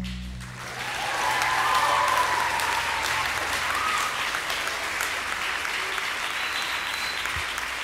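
Audience applause that swells about a second in as the band's last note dies away, with a few cheers over the clapping.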